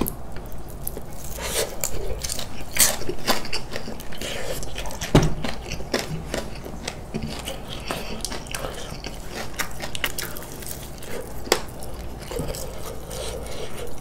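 Close-miked biting and chewing of spicy glazed fried chicken: many sharp crunching clicks with wet chewing between them, the loudest bites about three and five seconds in and again near the end.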